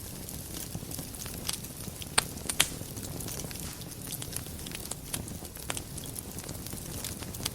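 Wood fire burning in a fireplace: a steady low rush with scattered crackles and sharp pops, the two loudest pops coming close together a little over two seconds in.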